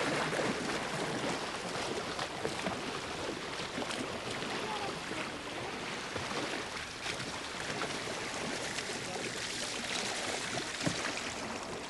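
A kayak paddle splashing through the water stroke after stroke as the paddler sprints, with water rushing along the hull.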